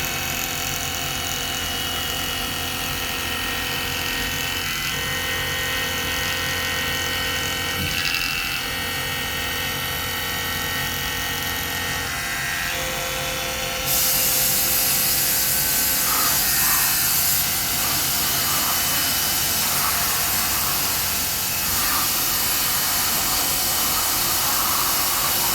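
CNC milling machine cutting a cam track: a steady machining whine with several fixed tones. About halfway through, a louder hiss joins and the overall sound gets louder.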